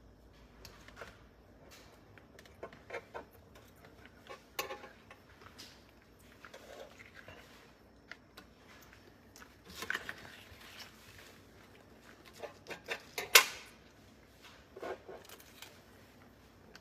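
Scattered light taps, clicks and wet scuffing of rubber-gloved fingers handling and peeling a soaked dollar bill on a flat griddle top, with one sharp, louder click late on.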